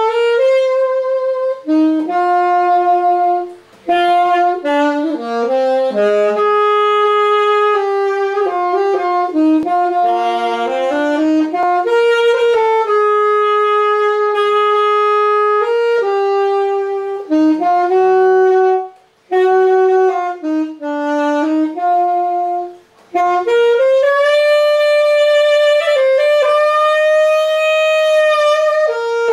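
Yamaha YAS-280 alto saxophone playing a slow melody, one note at a time, mostly long held notes in phrases, with a few short breaks between phrases.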